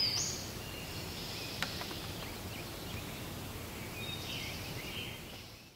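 Woodland ambience: birds singing high over a low steady outdoor rumble, with a single click about a second and a half in. It fades out near the end.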